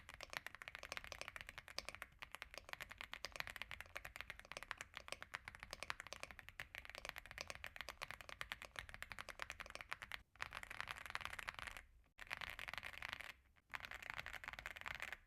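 Fast typing on an Aula F75 pre-built mechanical keyboard with Reaper switches: a dense run of soft, creamy keystrokes, broken by a few brief pauses in the second half.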